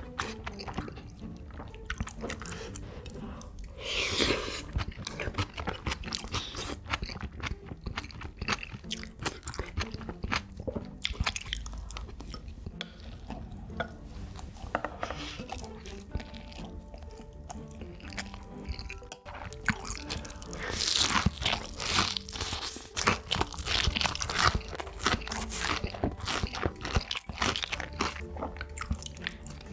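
A person eating, with crisp crunching bites and chewing, loudest about four seconds in and again in a run of crunches in the second half. Background music plays alongside.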